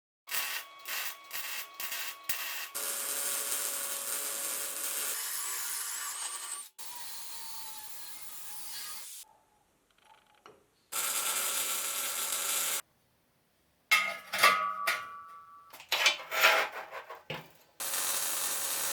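Workshop tool work in a series of short clips that start and stop abruptly: rubbing and scraping sounds with scattered knocks, broken by brief silences.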